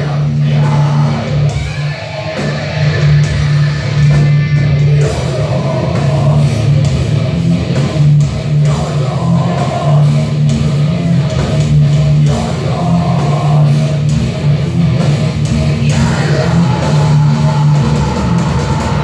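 Heavy metal band playing live: distorted electric guitars and bass over a Tama drum kit, loud and dense throughout, with heavy held low guitar notes.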